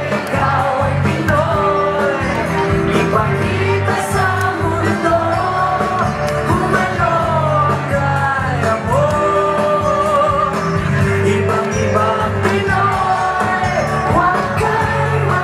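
Upbeat pop-rock song with a sung vocal over a steady beat and bass line.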